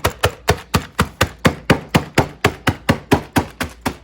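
Flat face of a hammer pounding Hot Cheetos sealed in a Ziploc bag, a steady run of sharp blows about four a second, crushing the chips toward a powder.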